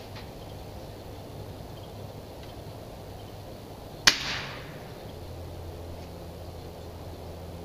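One shot from a Ruger Airhawk Elite .177 break-barrel spring-piston air rifle: a single sharp crack about four seconds in, with a short ringing tail.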